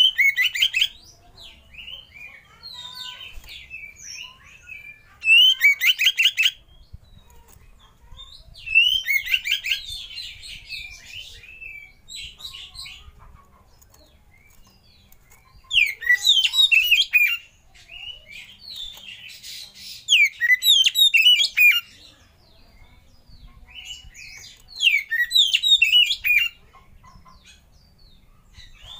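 Oriental magpie-robin singing: about six loud bursts of rapid, varied whistled and chattering phrases, separated by quieter scattered notes.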